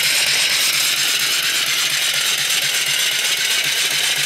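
Single-cylinder vertical reversing steam engine running on steam, its exhaust and valve gear making a fast, steady chuffing hiss.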